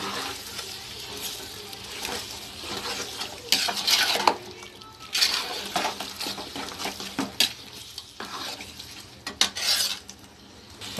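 Steel ladle stirring and scraping beef in masala around a large aluminium pot, with irregular knocks against the pot's side over a steady sizzle from the frying masala. The beef is being sautéed in the onion-tomato masala.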